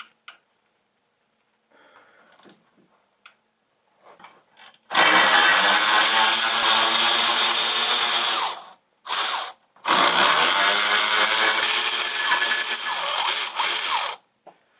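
Handheld power tool motor running in two long runs of a few seconds each, with a short burst between, spinning out fasteners while the driveshaft is being removed. A few small clicks come before it.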